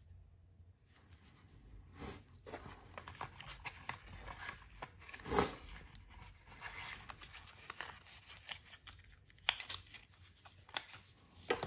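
Cellophane wrapper crinkling and tearing as it is peeled off a sealed deck of playing cards, in a string of short crackles, loudest about five seconds in.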